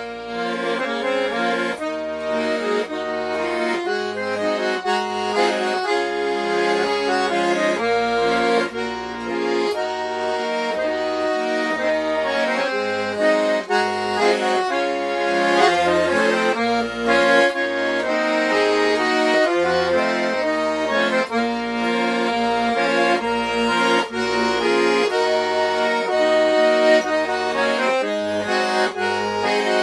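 Hohner button accordion played solo: a traditional melody on the right-hand buttons over bass notes pulsing regularly on the beat.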